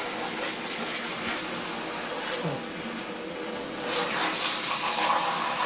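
Running water rinsing the dust out of a split air conditioner's air filter, a steady splashing stream that gets a little louder about four seconds in.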